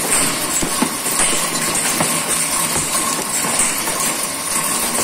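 Correa Norma MGT milling-turning machine taking an 8 mm-deep turning cut on a large metal ring: a steady hiss with a steady tone, with scattered clinks of metal chips flying off and striking.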